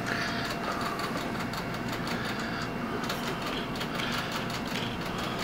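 A person breathing heavily right against the microphone, soft swells of hiss over a steady background noise.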